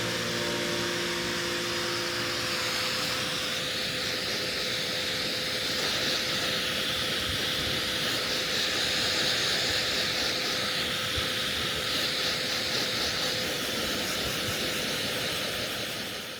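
Steady rushing noise of strong wind at the seashore, fading out at the very end.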